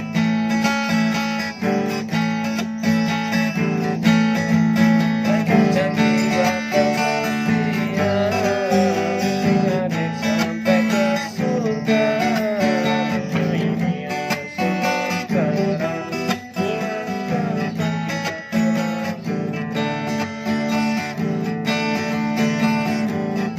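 Acoustic guitar strummed in steady chords, with a wavering melody line over it through the middle stretch.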